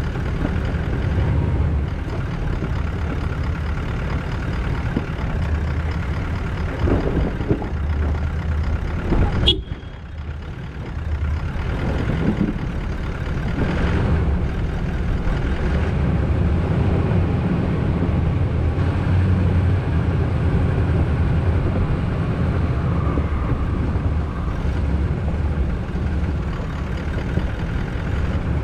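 A four-wheel drive crawling down a loose, rocky hill track on engine braking. The engine and drivetrain make a steady low drone, with rough noise from the vehicle working over the rocks. One sharp click about nine and a half seconds in.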